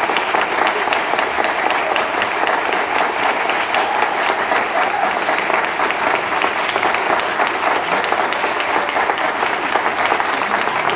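Audience and choir applauding together, a dense, steady clapping of many hands.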